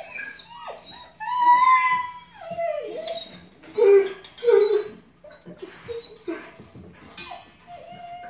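Young puppies whining and yipping in high, gliding cries, with a long drawn-out whine starting about a second in and two short, louder, lower yelps around four seconds.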